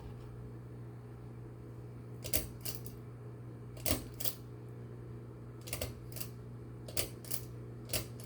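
Ceiling fan pull-chain switch clicking repeatedly as the chain is pulled and let go, the clicks coming in pairs about every second or so from about two seconds in, over the steady low hum of running fan motors.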